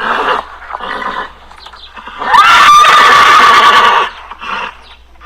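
An animal calling: two short calls, then, about two seconds in, one long loud call that rises quickly and holds a steady pitch, followed by a few fainter short calls.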